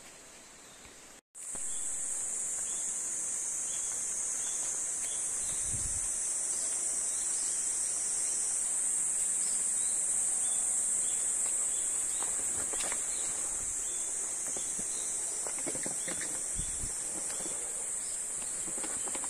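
Steady high-pitched insect shrilling in the forest, coming in after a brief gap about a second in and holding on without a break. A few faint rustles or steps sound in the second half.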